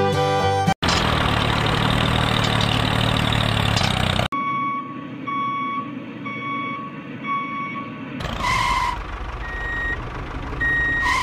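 Truck reversing alarm beeping, a repeating beep about one and a half times a second. Before it comes a steady rushing mechanical noise that cuts off suddenly about four seconds in. Near the end there are noisy sounds with two short louder tones.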